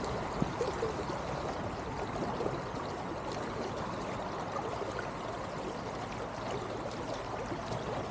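A trout stream's water flowing: a steady, even rushing with no breaks.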